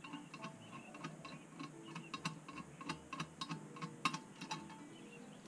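Hand ratchet clicking in short, uneven runs as a mechanic turns fasteners in a car's engine bay.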